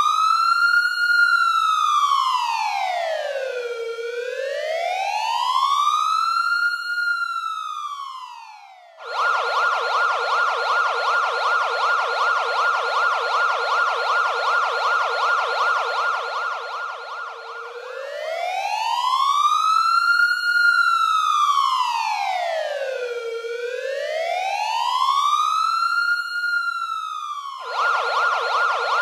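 Electronic ambulance siren alternating between modes: a slow wail rising and falling about every five and a half seconds, switching about nine seconds in to a fast yelp, back to the slow wail a little past halfway, and to the fast yelp again shortly before the end.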